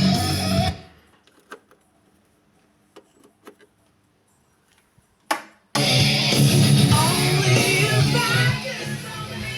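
Guitar music from FM radio played through a Pioneer SX-1080 receiver cuts off about a second in, leaving near silence with a few faint clicks and a brief burst of sound just after five seconds, as the receiver is tuned between FM stations; music from another station comes back in near six seconds.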